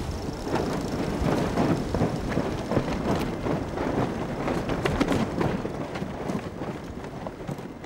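Dense, irregular clicking and clattering from a sailboat's deck gear as a sheet is worked on a chrome winch, fading toward the end.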